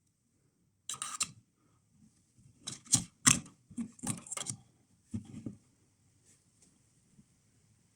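A few clusters of short clicks and knocks, like hard objects being handled, that die away after about five and a half seconds.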